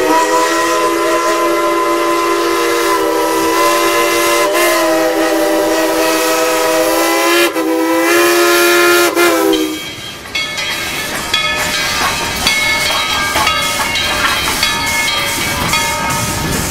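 Train whistle sounding a chord of several notes at once, held for about seven seconds, then broken briefly and blown again, wavering slightly before it stops about ten seconds in. After that comes a busier mix of shorter tones and clicks.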